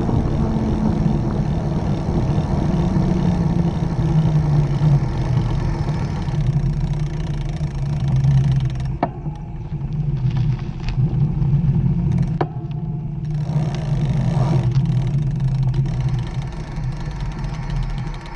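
Mountain bike rolling along a paved path, picked up by a camera mounted on the frame: steady deep rumble of tyres, wind and drivetrain, with a few sharp clicks near the middle.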